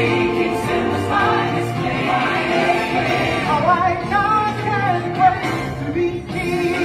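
Stage-show music with a choir singing a sustained melody over the accompaniment.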